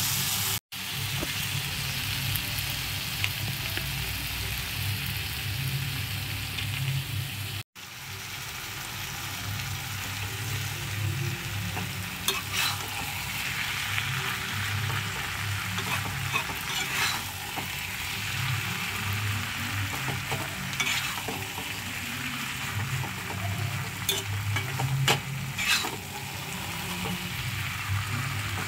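Stir-fried vegetables and noodles sizzling in a hot pan while a slotted metal spatula tosses them and scrapes the pan, the scrapes coming more often in the second half. The sound cuts out briefly twice, about a second in and near eight seconds in.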